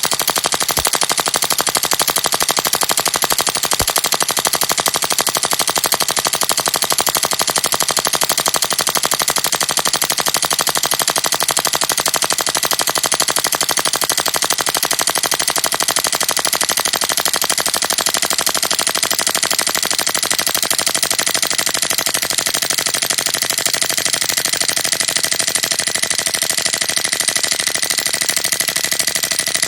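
Tokyo Marui Glock 18C airsoft gas blowback pistol with a metal slide, dry-firing on full auto with no BBs loaded: the slide cycles in a fast, continuous, steady clatter of rapid clicks.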